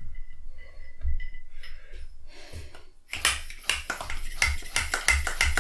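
Bicycle hand pump inflating a tyre. First come a few faint clicks and taps as the pump is fitted to the valve. About three seconds in, quick, even pumping strokes start, each a sharp rush of air.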